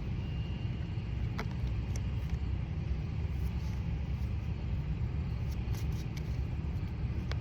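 Steady low rumble with no clear pattern, and a faint click about a second and a half in.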